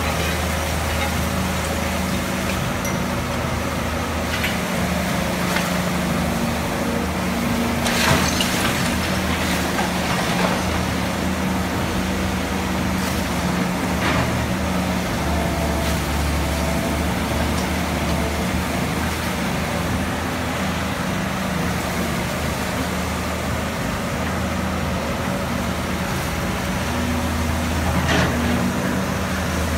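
Caterpillar 320B hydraulic excavator's diesel engine running steadily under load while digging and loading, its pitch shifting a little. A few clanks and crashes of the bucket and rubble ring out over it, the loudest about eight seconds in, and another about fourteen seconds in as a load is dumped into the dump truck's bed.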